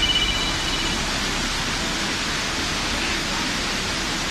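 Floodwater rushing through a city street, a steady wash of noise. A brief high-pitched tone sounds in the first second.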